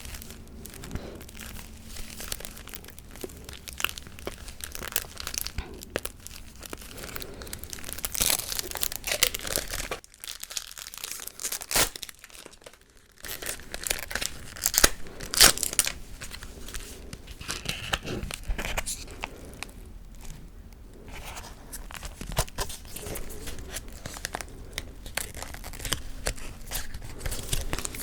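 Close-miked ASMR gum chewing and tapping: a dense, irregular run of crackles, clicks and sticky smacks, thinning out to a quieter stretch about ten seconds in before picking up again.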